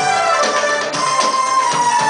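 Live Arabic orchestral music with a qanun among the instruments: a sliding melody line over a steady percussion beat.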